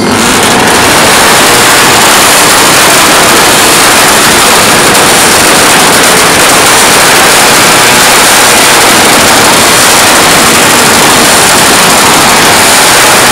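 Motorcycle engine revved hard and held at high revs through an open exhaust in a rev-bombing contest, so loud that the recording overloads into a steady, harsh noise.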